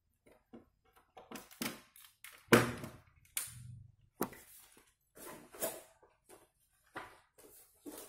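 Unpacking handling noises: a laptop power adapter and its cable set down on a table and packaging handled, an irregular string of short knocks and rustles, the loudest knock about two and a half seconds in.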